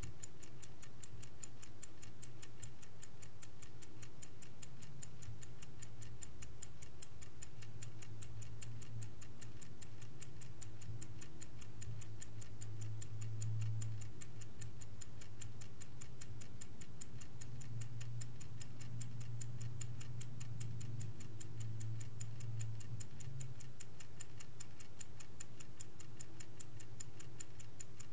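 Vintage Swiss-made Angelus clock ticking steadily, a rapid, even run of crisp ticks several times a second.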